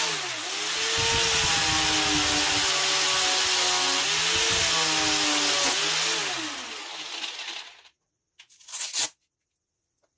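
Electric grinder working steel, its motor hum dipping in pitch twice as the metal is pressed against it. It is then switched off and spins down to silence at about eight seconds in, followed by a brief noise near the end.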